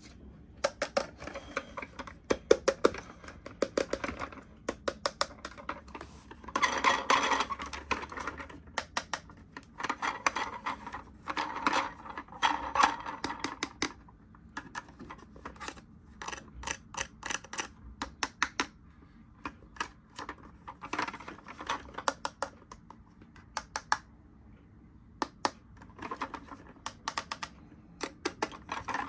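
Toys and packaging being handled: many small, sharp plastic clicks and taps, with a few stretches of rustling in the middle.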